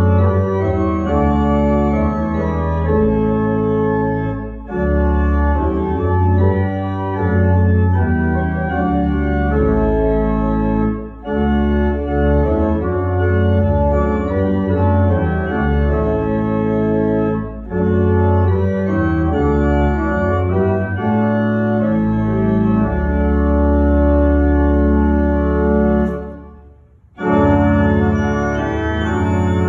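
Church pipe organ playing sustained full chords over a pedal bass, in phrases separated by short breaks. Near the end the sound stops for about a second before the next phrase begins.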